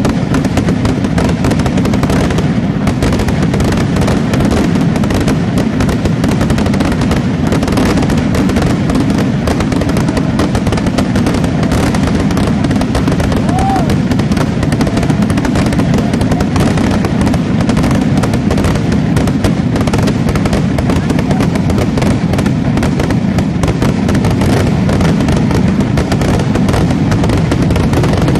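Aerial fireworks going off in a dense, unbroken barrage. Rapid bangs and crackling merge into a steady low rumble.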